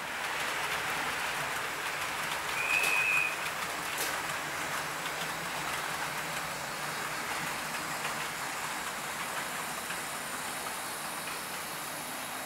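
Model train rolling along the track, a steady rushing rattle of wheels and motors as it approaches. About three seconds in, a brief high whistle-like tone sounds over it.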